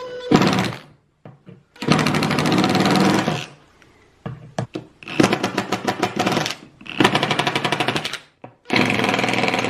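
Cordless impact drivers, a Makita and then a DeWalt, running in about five bursts of one to two seconds with short pauses, a fast hammering rattle as the bit is pressed on a small nail head to see whether the hammering drives the nail in. A few sharp clicks sit between the bursts.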